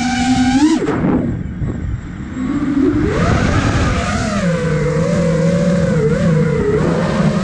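Electric motors and propellers of a 5-inch FPV quadcopter (iFlight Nazgul Evoque F5) whining in flight, with rushing air noise. The pitch follows the throttle: it climbs, drops away sharply about a second in, then rises again and holds with a wavering pitch.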